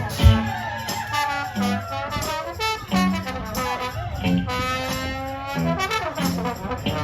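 Live band playing an instrumental break of a soul-rock song: a bending lead melody line over bass and drums.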